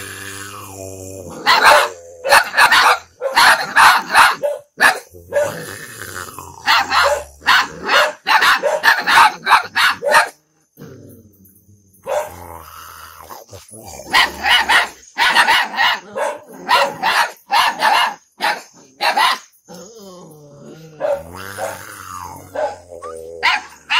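Puppies barking in repeated bursts with short pauses between, with some growling.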